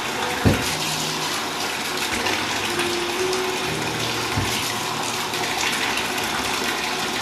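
Bathtub faucet running steadily into the tub during a puppy's rinse, with two dull knocks, one about half a second in and one near the middle.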